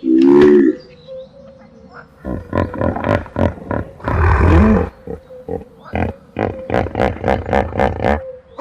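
A large animal calling: a short pitched call at the start, then from about two seconds in a run of about a dozen deep, pulsed calls. The longest is near the middle, and they get shorter and quicker toward the end.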